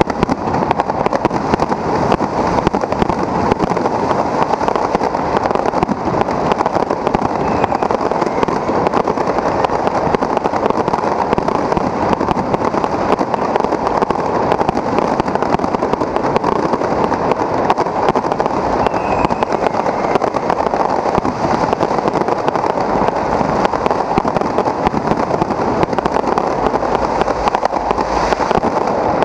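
Aerial fireworks going off in a dense, continuous barrage, with bursts and crackling packed so close together that they run into one loud, unbroken din.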